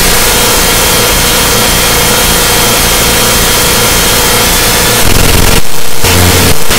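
Harsh noise / power electronics track: a loud, distorted wall of noise over a steady droning tone. About five seconds in it gets louder, with a heavy low pulse, and cuts out abruptly twice.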